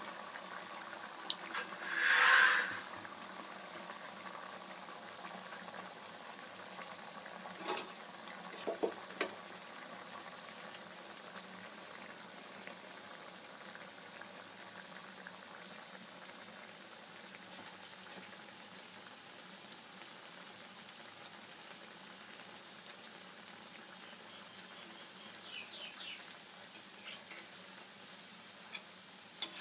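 Rice-paste kurkure frying in hot oil in a kadhai: a steady bubbling sizzle, with a short loud hiss about two seconds in and a few light clicks later.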